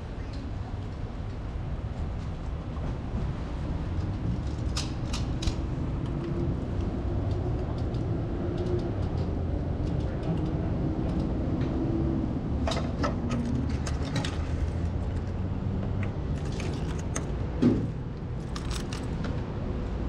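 Motorcycle on the move: a steady low rumble with a faint engine note above it, and a few sharp clicks and rattles, the loudest about three-quarters of the way through.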